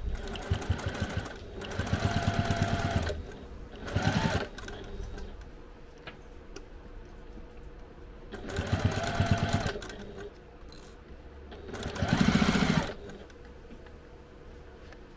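Electric sewing machine stitching through layered fabric in five short runs of about a second each, stopping and starting as the seam is fed through. It is basting the layers together.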